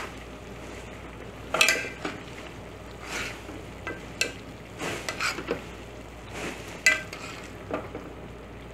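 A metal spoon stirring boiling vegetables in an aluminium pot, scraping and clinking against the pot's side now and then, over the steady bubbling of the boil.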